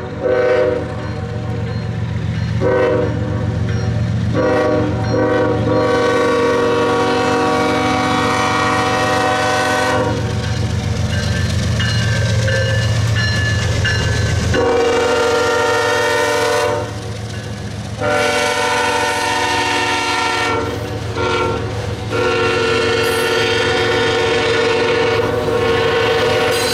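Norfolk Southern diesel locomotives' air horn sounding a series of long blasts with short breaks, over the low rumble of the diesel engines as they approach. The lead locomotive passes about halfway through and the engine rumble falls away, then autorack freight cars roll by with wheels clacking over the rail joints while the horn keeps sounding.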